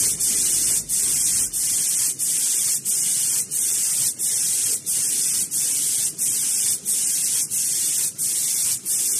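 Automatic paint spray guns on a glass-bottle painting line, spraying with a loud, high hiss that cuts off briefly about every two-thirds of a second as the guns cycle.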